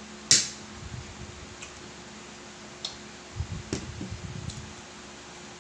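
A metal fork clinks sharply once against a plate, then chewing with a few faint clicks.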